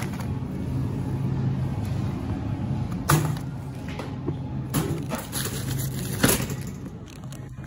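Groceries being handled in a wire shopping cart: packaged items knocking and rustling against the cart, with three sharp knocks about 3, 5 and 6 seconds in, over a steady low hum.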